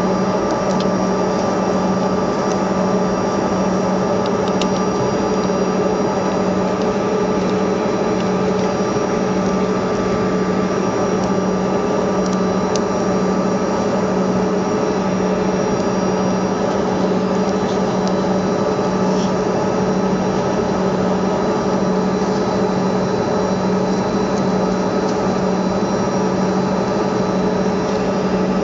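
Cabin noise of a Bombardier CRJ200 regional jet on the ground: the steady drone and hum of its rear-mounted turbofan engines at low power, holding an even pitch without spooling up.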